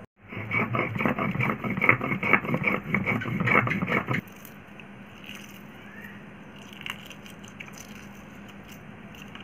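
Stone roller grinding cumin seeds on a shil (flat grinding stone): rough, rhythmic back-and-forth scraping of stone on stone for about four seconds. It then stops, leaving only a low background with a few faint clicks.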